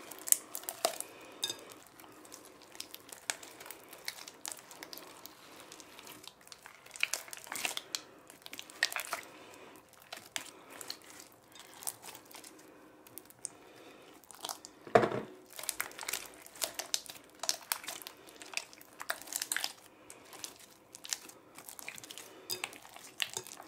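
Hands squeezing and kneading a big batch of Elmer's school glue slime in a glass bowl while it is still being activated: irregular wet squishing and crackling, with one louder thump about fifteen seconds in.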